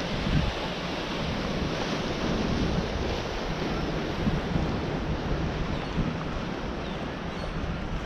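Wind buffeting the microphone over a steady wash of small waves breaking on the beach.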